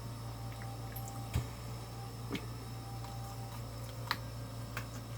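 Close-miked chewing of crispy fried chicken wings: a few sharp, wet mouth clicks and squishes over a steady low electrical hum.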